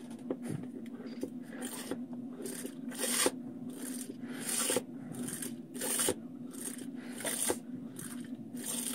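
Survivor Filter Pro hand-pump water filter being pumped in steady strokes. Each stroke of the plunger gives a rasping hiss, about three strokes every two seconds, and the strokes become regular about two seconds in as tap water is pushed through the filter.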